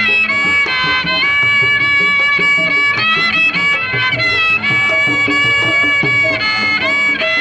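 Betawi ondel-ondel street music: a high melody line of long held notes that step up and down, over a beat of hand drums.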